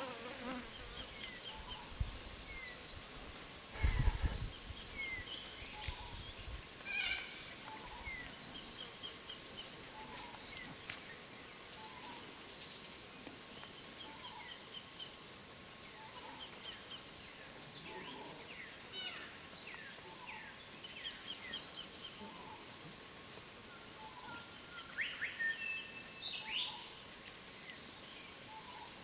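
Outdoor bush ambience: small birds chirping and trilling in short repeated calls, with a louder run of calls near the end, over a faint steady insect hum. A few low thumps in the first several seconds, like wind or handling on the microphone.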